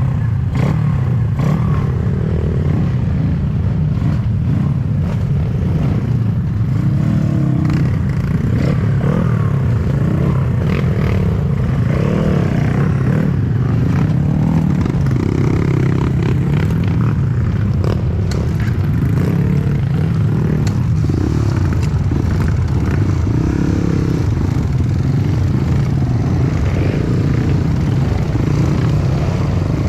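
Dirt bike engine running steadily, with scattered knocks and scrapes over it.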